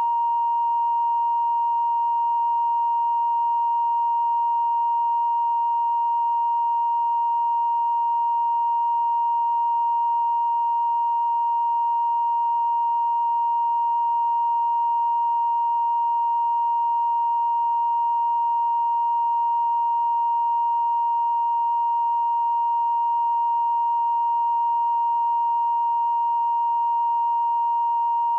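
1 kHz line-up reference tone, the test tone recorded with colour bars at the head of a videotape: one steady, unbroken pure pitch at an even level.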